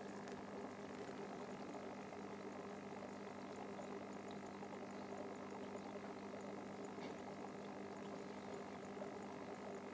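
Faint, steady running of aquarium equipment: a low hum with the sound of moving water.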